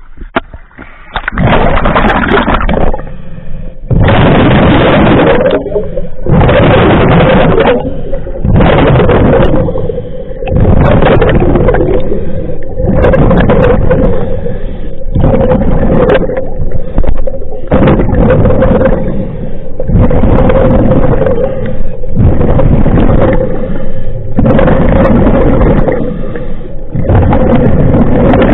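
A scuba diver's regulator breathing underwater: rushing bursts of inhaled air and exhaled bubbles, one every second or two, over a faint steady hum.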